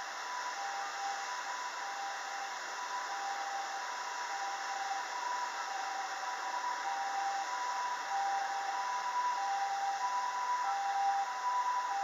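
Japanese ambulance siren sounding its two-tone hi-lo call, a higher and a lower tone taking turns at a steady pace and slowly growing louder, over a steady background hiss.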